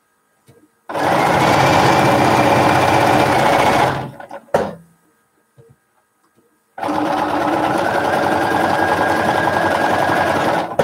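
Bernina sewing machine stitching fabric pieces at a steady speed in two runs, about three and four seconds long, with a short click between them.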